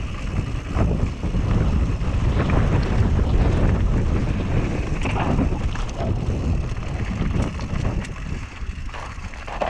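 Wind buffeting the camera microphone as a Whyte G-170 mountain bike rolls fast down a loose dirt and gravel singletrack, with tyre crunch and short rattles and clicks from the bike.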